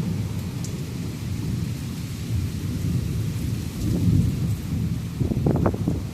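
Thunder rumbling through heavy rain, a continuous low rumble under the rain's hiss that swells about four seconds in and again near the end with a few sharper cracks.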